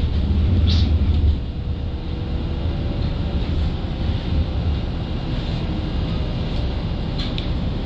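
Toronto streetcar running along the track: a steady low rumble of wheels on rail and motors, louder for the first second and a half and then easing. Brief high squeaks come about a second in and again near the end.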